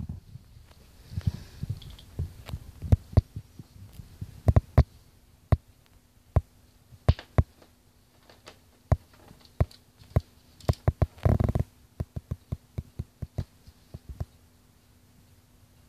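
Blue-and-gold macaw making irregular sharp beak clicks and taps, dozens of them with uneven gaps, with a short louder burst a little past the middle.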